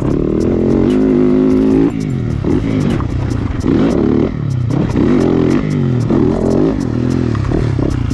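Yamaha motocross bike engine being ridden hard. It revs up and holds high for about two seconds, drops sharply, then rises and falls again and again as the rider works the throttle and gears through the turns.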